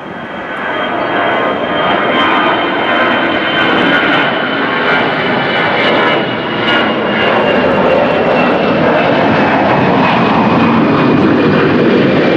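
Jet airliner's engines running loud, building over the first two seconds and then holding steady, with a high whine that slowly drops in pitch.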